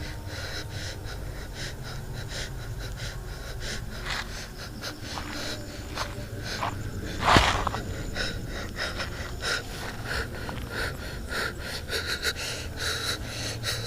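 A person breathing close to the microphone, with one loud, sharp breath about seven seconds in, over a faint run of short ticks.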